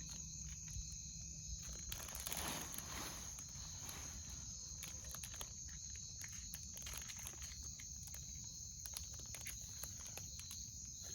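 Night insect chorus of crickets, a steady high-pitched chirring, with scattered faint clicks and a brief rustle about two seconds in.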